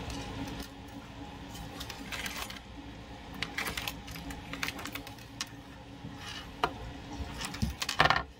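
Irregular light clicks, taps and rustles of wire and small parts being handled on a tabletop, with a louder clatter near the end.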